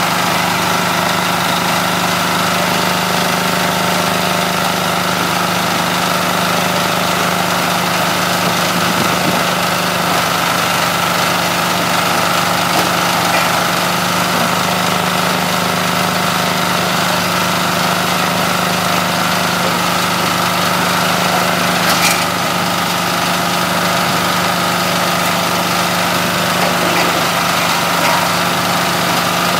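Coconut-husk shredder running steadily under its small engine, a constant machine hum while husks are fed through it. A single short sharp crack stands out about twenty-two seconds in.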